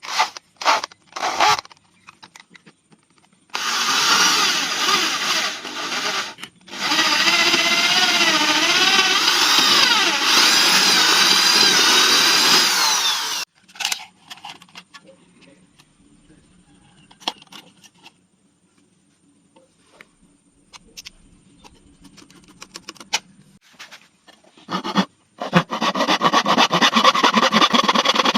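A handheld power tool, likely an electric drill, running in two long bursts with its pitch wavering under load, separated by clicks and handling knocks; it starts running again near the end.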